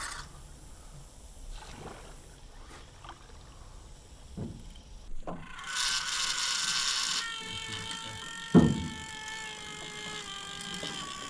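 A fishing reel working under load on a hooked alligator, its drag giving out a ratchety hiss for about a second, then a steady strained tone. Scattered knocks sound on the aluminium jon boat, and one sharp loud thump on the hull comes about three-quarters through.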